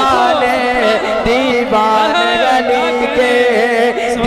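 A man singing a naat (Urdu devotional poem) into a microphone, in long, wavering, melismatic lines without pause.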